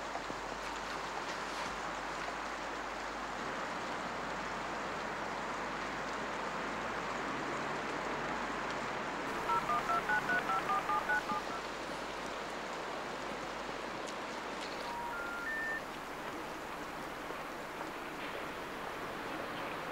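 Nokia slider mobile phone keypad tones: about ten quick beeps as a number is dialed, over a steady background hiss. A few seconds later a short rising three-note tone sounds.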